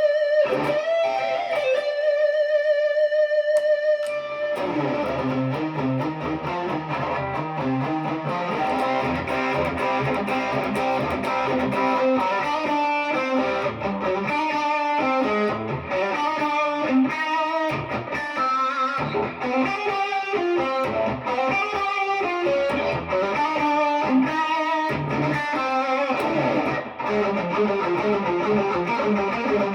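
PRS Special Semi-Hollow electric guitar being played: a held, sustained note for the first few seconds, then a busy passage of single notes and chords.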